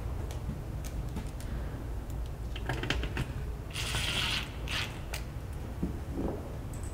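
Cordless brushless drill driving a mounting screw through the metal back plate into the wall. A short run of the drill about four seconds in is set among clicks and taps of the screw and the drill.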